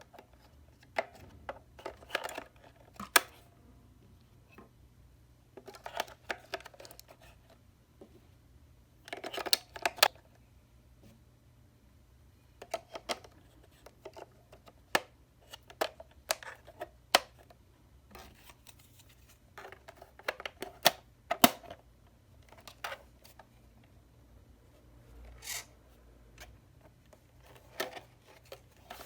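Intermittent handling noises: small clicks, taps and rustles in short clusters every few seconds, over a faint steady low hum.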